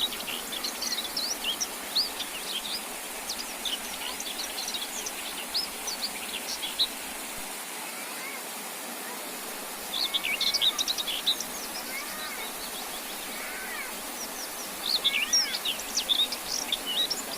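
Songbirds chirping and twittering in quick high bouts, with two pauses of a few seconds, over a steady hiss.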